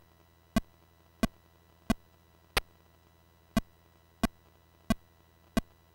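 Short, evenly paced electronic beeps from a Commodore Plus/4 egg-catching game played through the DigiMuz Yamaha sound cartridge, about one every two-thirds of a second, with one beat skipped about halfway.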